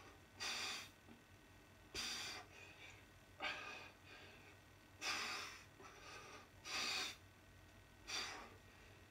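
A man's hard, effortful breaths during barbell upright rows: six forceful breaths, about one every second and a half, in time with the repetitions.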